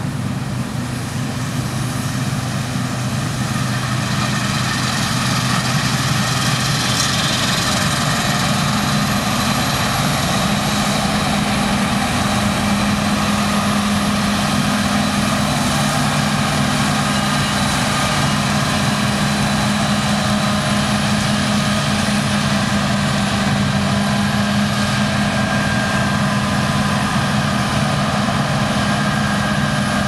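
Claas Lexion 740 combine harvester working under load while cutting wheat: a steady engine drone with fainter high whines from its drives. It grows louder over the first few seconds as it approaches, and the tones shift in pitch about a third of the way through as it turns past.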